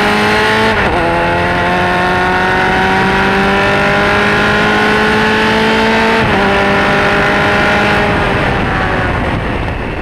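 Onboard sound of an F2000 race car's Ford Zetec four-cylinder under power, its note climbing steadily through the revs, with an upshift about a second in and another about six seconds in. The engine sound fades out near the end.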